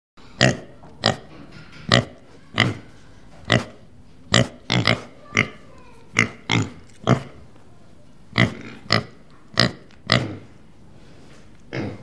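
Pig grunting: a quick run of short, sharp grunts, about one to two a second, with a brief pause midway.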